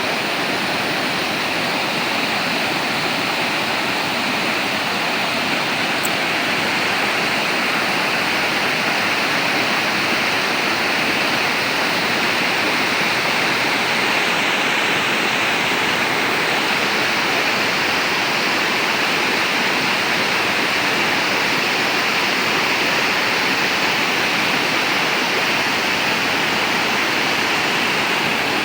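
Manthokha waterfall pouring, a steady, unbroken rush of falling water.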